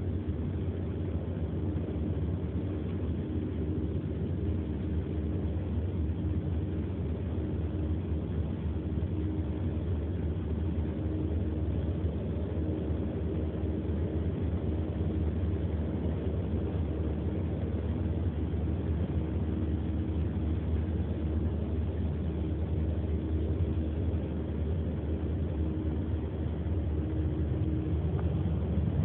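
Steady low rumble of a car heard from inside the cabin, even throughout, with a faint steady hum above it.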